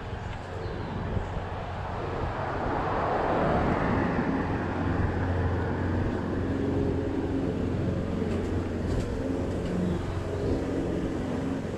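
Road traffic alongside: a car passes, swelling and fading about three to four seconds in, then a steady engine hum carries on.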